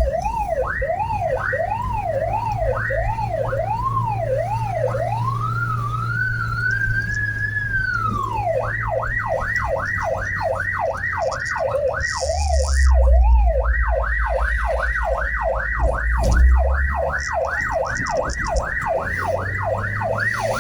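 Ambulance's electronic siren sounding while under way. It runs a fast yelp, slows to a slower warble, rises and falls once in a long wail, then returns to the fast yelp, over the low rumble of the vehicle.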